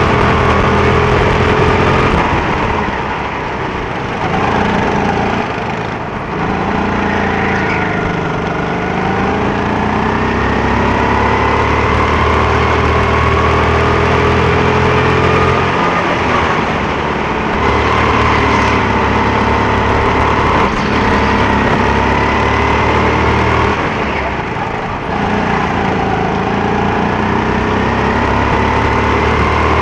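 Go-kart engine running hard, its pitch rising as it accelerates and falling away about three times as it slows before picking up again.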